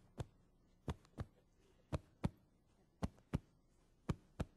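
A heartbeat, a slow, steady lub-dub: five double beats, about one a second.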